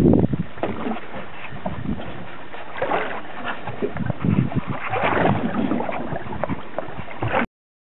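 Wind buffeting the microphone over rushing water aboard a boat, with irregular gusts and surges; the sound cuts off abruptly near the end.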